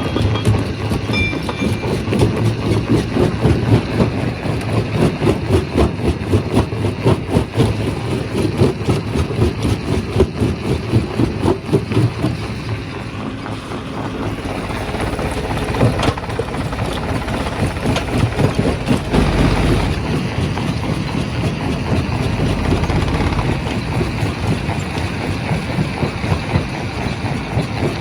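Primary rock crusher running: a heavy machine drone with a rapid, uneven rattling pulse, which evens out somewhat about halfway through.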